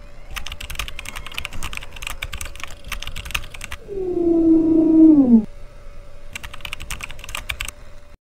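Computer keyboard typing, rapid key clicks in two runs over a faint steady hum. Between them, about four seconds in, a loud electronic tone holds and then drops in pitch before cutting off.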